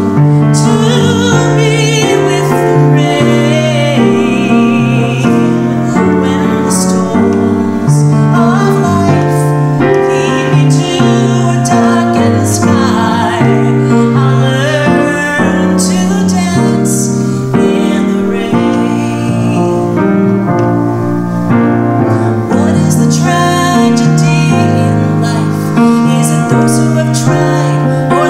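A woman singing while accompanying herself on a grand piano, her held notes wavering with vibrato over sustained piano chords.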